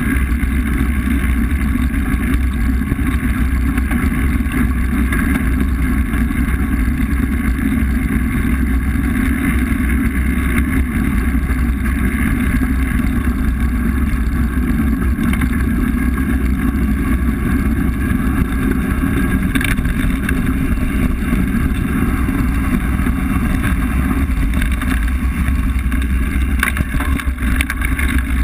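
Wind buffeting an action camera's microphone over the steady noise of mountain bike tyres rolling on a gravel track, with a few brief dips in loudness near the end.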